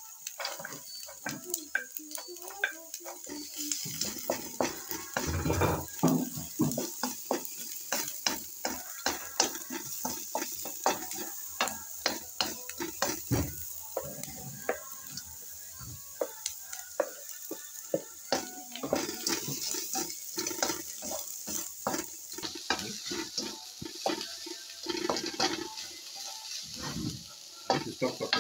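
Diced onions and other vegetables sizzling in hot oil in a frying pan while a wooden spatula stirs and scrapes them, with frequent sharp taps and scrapes against the pan.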